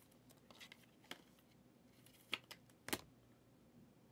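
Quiet handling of a stack of trading cards: faint rustles and light ticks, then two sharper taps about half a second apart a little after two seconds in.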